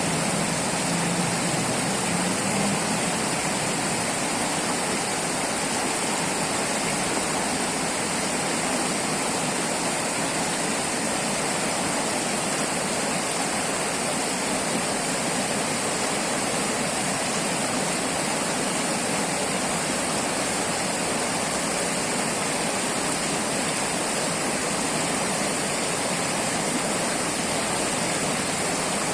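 River water flowing, a steady rushing that stays even throughout.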